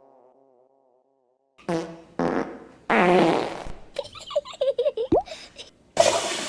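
A string of cartoon fart sound effects: short blasts with gaps between them, the longest and loudest about three seconds in, then a choppy sputtering run that ends in a quick rising squeak, and another loud blast near the end.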